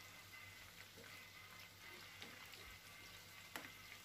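Faint sizzling of coated chicken pieces deep-frying in oil in a pan, with scattered small pops and a light knock near the end.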